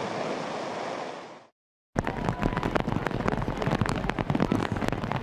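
Torrential rain. First a steady rush of downpour and water pouring off eaves, which fades out about a second and a half in. After a short gap, heavy rain splashes on pavement and umbrellas with many sharp spatters.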